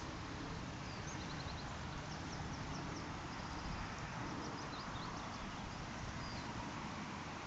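A steady hiss of open-air noise with faint bird chirps: short runs of quick high notes scattered through.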